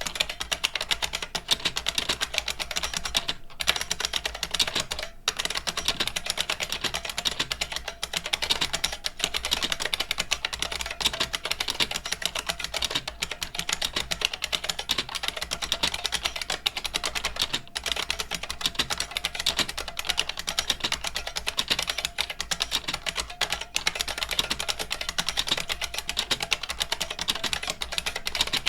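IBM Model M keyboard's buckling-spring keys typed on rapidly and continuously, a dense run of sharp clicks with two brief breaks a few seconds in. The switches are not yet lubricated.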